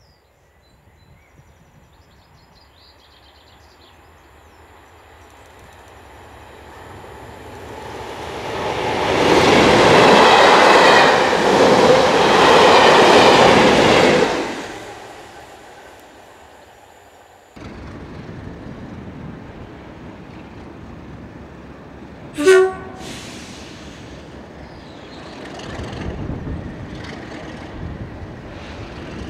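Class 37 diesel locomotive-hauled test train approaching and passing at speed, the engine and the wheels on the rails building to a loud peak and then fading away. After a sudden change, a Class 37 runs steadily in the distance at a station and gives one short horn blast about ten seconds before the end.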